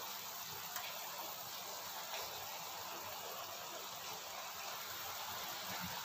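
Chicken and green-chili soup boiling in a wok: a steady low hiss of bubbling broth.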